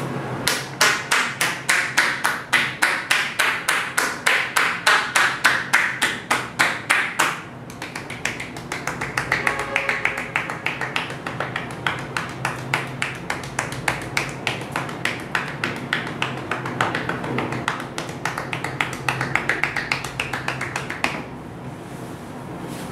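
Percussive massage: a masseuse's hands rhythmically striking a person's back, about four to five brisk slaps a second at first, then about seven seconds in quicker and softer tapping that stops shortly before the end.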